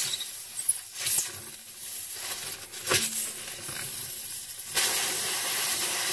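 Air hissing out of a punctured car tire around a tire-plug reamer worked in and out of the hole, with a few small clicks. The hiss gets louder and steadier about five seconds in.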